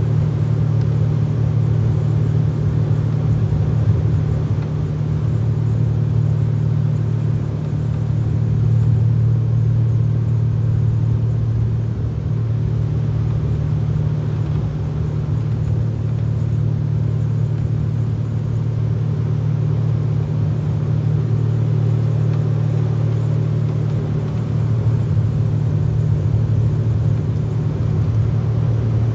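Boat motor running steadily at cruising speed, a constant low drone.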